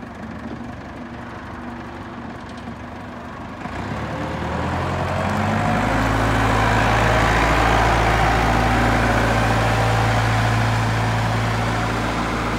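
Kalmar LMV 3-500 forklift's engine idling, then revving up about four seconds in and running louder and steadily as the forklift moves off.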